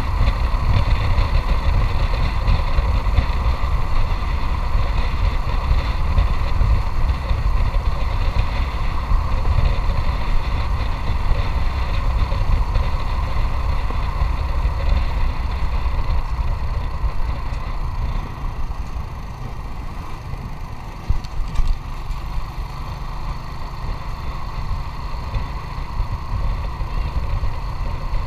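Motorcycle engine running while riding, under a heavy low rumble. It gets quieter about two-thirds of the way through, and a couple of brief knocks sound shortly after.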